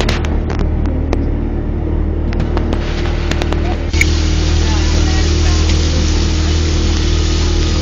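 Motorboat engine running steadily, with a few knocks early on. About four seconds in, a louder rushing noise of water and wind joins it and keeps on.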